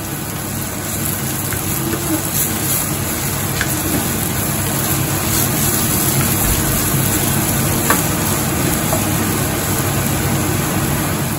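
Sliced onions sizzling steadily in coconut oil in a frying pan, fried to a deep golden brown, as a wooden spatula stirs them, tapping the pan a few times.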